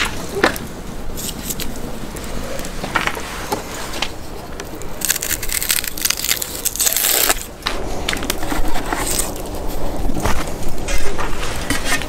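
Dry papery onion skin crackling and tearing as an onion is peeled by hand, with scattered small crunches and clicks and a denser rustle in the middle.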